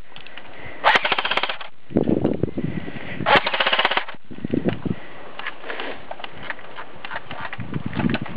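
Airsoft gun firing two short full-auto bursts of rapid, evenly spaced shots, about a second in and again about three and a half seconds in.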